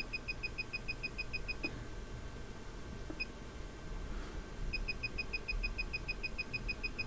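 Desoldering station's control panel beeping in quick short pips, about six a second, as its temperature setting is stepped up button press by button press. One run stops about two seconds in, a single beep follows a second later, and another run starts near five seconds.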